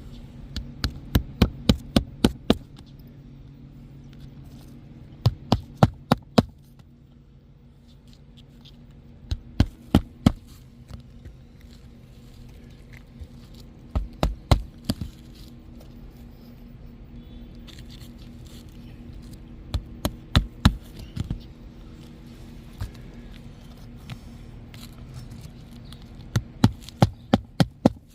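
Hammer driving roofing nails into a replacement asphalt shingle: quick runs of sharp strikes, about four to eight at a time, several seconds apart, over a low steady hum.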